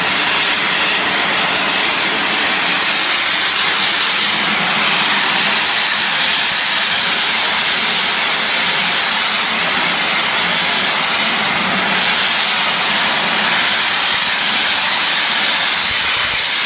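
High-pressure car-wash washer jet spraying from the wand onto wet concrete: a loud, steady hiss.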